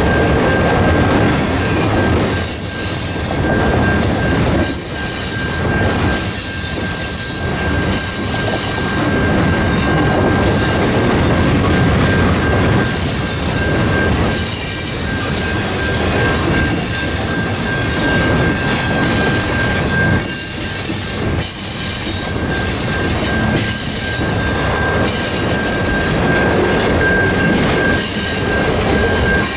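Canadian Pacific freight cars rolling steadily past at close range: wheels squealing and clattering over the rails in an irregular rhythm as each car goes by, with a steady high-pitched tone over the rumble.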